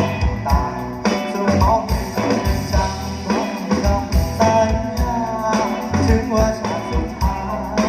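A live band playing a song with a steady beat: drums and bass under a melodic lead line that slides between notes.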